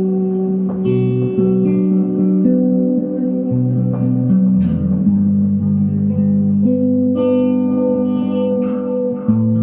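Electric guitar playing held notes and chords through a 1963 Fender Ecco-Fonic solid-state echo unit, the notes overlapping as each new one sounds over the last.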